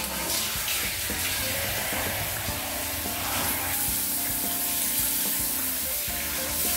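Water from a handheld shower head spraying steadily onto a wet Siberian husky's coat as it is rinsed during a bath, a continuous hiss.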